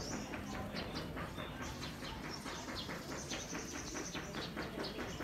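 Birds chirping outdoors in a quick, continuous run of short calls, several a second. A high, even trill joins in from about two and a half to four seconds in.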